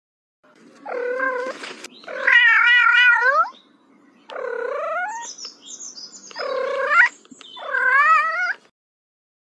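Cat meowing five times in a row, each call about a second long, the second and last with a wavering pitch.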